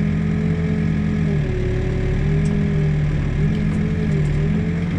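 A New Holland backhoe's diesel engine running steadily from inside the cab, its pitch sagging and recovering a few times while the boom swings.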